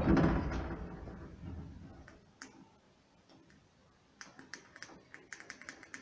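Passenger lift's running noise dying away over the first two seconds as the car comes to a stop. After a short quiet stretch, a run of light, irregular clicks and ticks begins about four seconds in, around the lift's control buttons.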